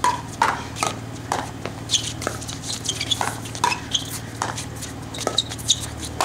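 Pickleball rally: paddles hitting a hard plastic pickleball back and forth, a series of sharp hollow pocks at irregular intervals, several in quick succession.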